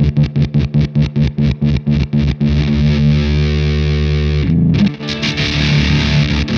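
Electric guitar with humbucking pickups played through a Fender Shields Blender fuzz pedal. Quick, choppy picked strikes for about two and a half seconds give way to a held fuzzed chord. A brief dip comes about four and a half seconds in, then a brighter, noisier chord rings out.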